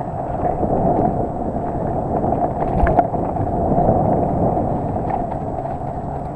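Mountain bike descending a rough dirt singletrack: a steady rumble of wind on the camera microphone and tyres and frame rattling over the trail, with one sharp knock about three seconds in.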